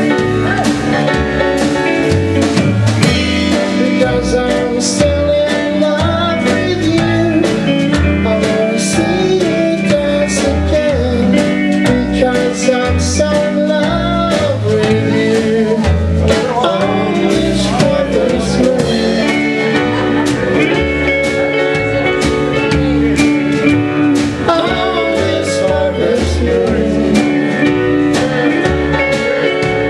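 Live band playing a slow country-rock song: guitar and a drum kit with cymbals keep a steady beat, and a voice sings through parts of it.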